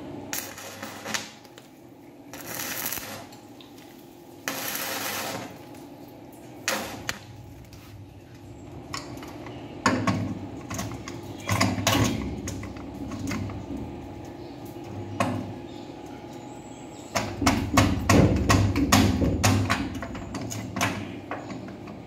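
Metal clinks, taps and knocks of pliers and a rim lock body being handled against a steel door, coming in clusters that are busiest near the end, with two short rasping noises in the first few seconds.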